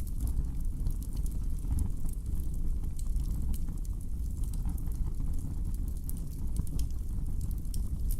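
Wood fire burning in a fireplace: a steady low rumble of flames with many small, sharp crackles and pops scattered irregularly throughout.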